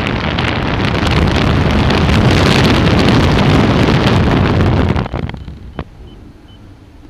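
Airflow buffeting the microphone on a hang glider in flight, a loud, even rushing. About five seconds in it drops away sharply, leaving a quiet stretch with a faint row of short, evenly spaced high beeps.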